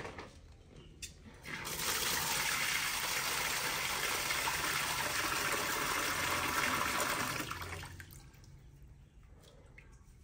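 Water from an outdoor tap pouring into a plastic basin that already holds water. It comes on about a second and a half in, runs steadily for about six seconds, then tapers off and stops.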